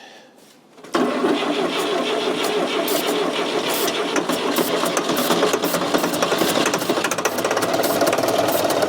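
Fordson Super Major's diesel engine bursting into life about a second in and running loudly with a rough, knocking clatter. A loose number 4 injector points to no compression in that cylinder, and the engine is probably running on three cylinders.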